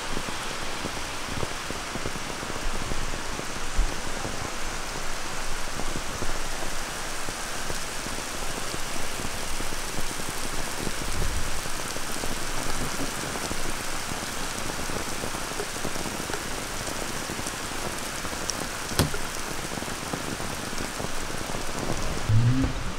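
Steady rain falling on a lawn and a paved street, with a single sharp click near the end.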